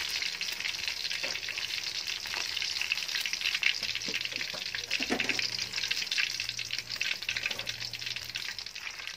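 Battered crablets deep-frying in hot oil: a steady sizzle full of fine crackling pops. A few faint knocks come about four to five seconds in, as tongs lift the crabs out of the pan.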